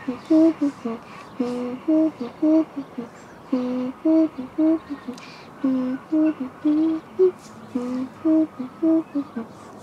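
A voice humming a lively dance tune in short, separate notes, with the same phrase repeating about every two seconds, in the rhythm of a highland dance.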